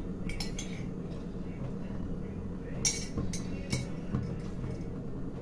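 Light clinks and knocks of kitchen utensils and containers being handled, three sharp ones close together about three seconds in, over a steady low hum.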